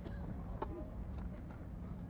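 Crowd of spectators murmuring and chatting quietly over a low, steady rumble of outdoor background noise.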